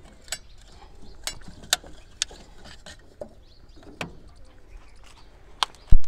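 Light metal clicks and clinks as an oil-bath air filter's oil bowl and cap are unclipped and handled, about eight sharp clicks scattered through, then one heavy thump near the end.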